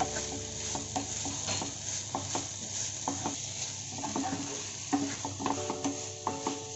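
Spoon stirring a vegetable-and-sauce pizza topping frying in oil and butter in a hot pan: a steady sizzle with repeated clicks and scrapes of the spoon against the pan.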